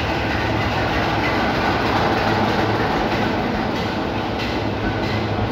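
Class 24 diesel locomotive D5054 passing with its train, its six-cylinder Sulzer engine running with a steady deep hum, then the carriages rolling by with a few wheel clicks over the rail joints in the second half.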